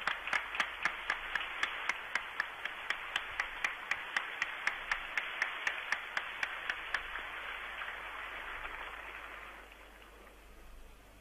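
Crowd applauding, with sharp regular claps about three a second standing out, the applause fading away over the last few seconds.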